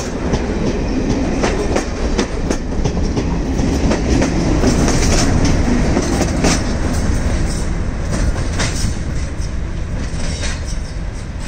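Diesel-hauled passenger train pulling slowly out, its coaches rolling past with wheels clicking over rail joints under a steady low rumble. The rear diesel locomotive goes by about halfway through, the loudest part, and the sound then eases as the train draws away.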